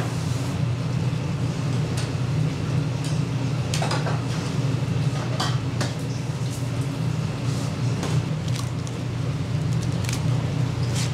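Water splashing and a few short clatters as a live fish is scooped out of a restaurant fish tank with a hand net, over a steady low hum.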